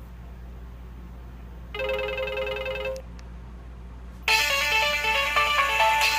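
Nokia 2310 mobile phone ringtones: a one-second electronic ringing burst about two seconds in, repeating the ring heard just before, then a pause. About four seconds in, a different and louder melodic ringtone begins, with quickly changing notes.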